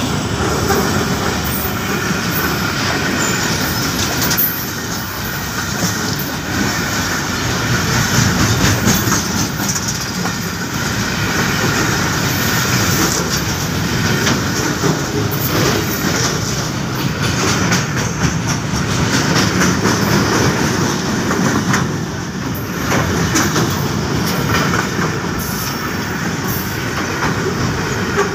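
Container freight train passing close by at speed: a loud, steady rumble of steel wheels on rail, with a repeated clatter as the wagons' bogies run over the rail joints.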